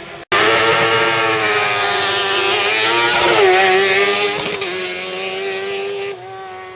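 Sports prototype race car passing at speed under full throttle, its engine loud and high-pitched. The pitch drops about three seconds in as it goes by, and the sound falls away near the end as it drives off.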